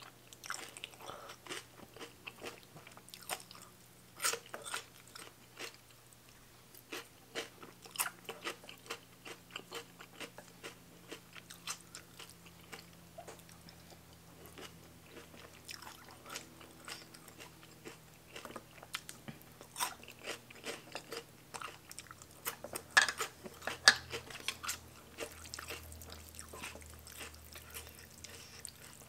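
Close-miked eating of rice noodles in broth: wet chewing and mouth smacks, with slurps as noodles are sucked in, in a run of many short sharp sounds. A louder burst of them comes a few seconds before the end.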